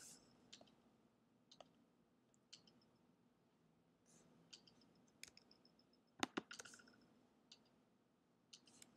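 Faint, scattered clicks of a computer mouse, about a dozen, with the loudest pair about six seconds in.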